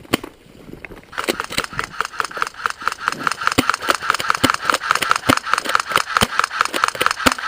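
Airsoft electric gun firing a long, rapid, evenly paced full-auto burst. It starts about a second in and stops just before the end, after a single sharp crack at the start.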